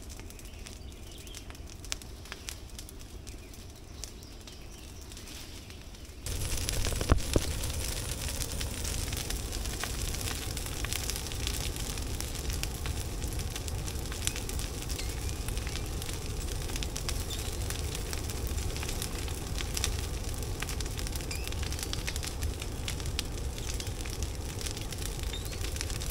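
Brush pile fire crackling and popping as green branches burn on a bed of hot coals. About six seconds in it turns abruptly louder: a steady low rush under denser crackling.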